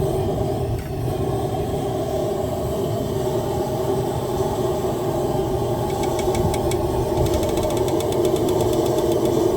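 Forge running with a steady, even roar. In the last few seconds, rapid light ticking sounds over it.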